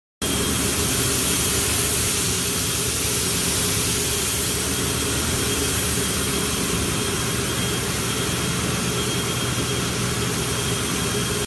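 Compressed air blowing steadily out of an air hose's blow nozzle, spraying out water carried in the air line: moisture keeps coming out of the piping however long it is purged. A low hum runs underneath the hiss.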